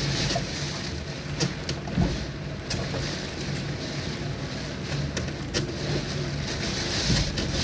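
Tropical-storm wind and heavy rain, heard through a window: a steady rushing with a low rumble and a few sharp taps.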